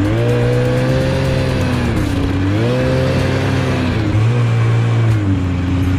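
A vehicle engine running loud and steady, its pitch dipping and climbing again several times as it is revved.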